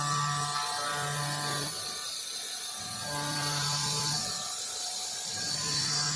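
Oscillating knife on an Acctek 2030C ATC CNC router buzzing as it cuts paper board, in spells of about a second with short pauses between cuts. A steady high hiss runs underneath.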